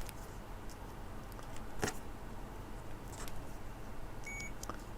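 Small handling clicks and taps as a jumper wire is checked with tester probes: a few faint clicks, one sharper click about two seconds in, and a brief faint high tone near the end.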